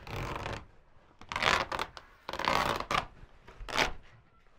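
Old pop-up camper canvas rustling and scraping as it is pulled down off the roof framing, in four separate bursts.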